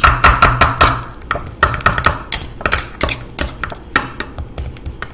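Metal spoons and a scraper chopping softened ice cream on a wooden end-grain cutting board. The sound is rapid, irregular knocks and scrapes, several a second, thinning out near the end.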